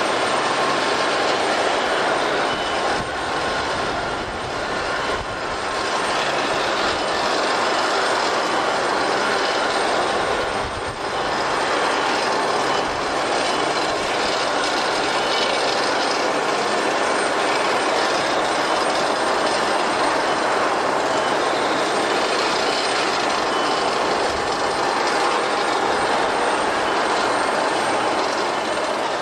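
Jet airliner engines running loud and steady: an even roar with faint steady whining tones, dipping briefly twice.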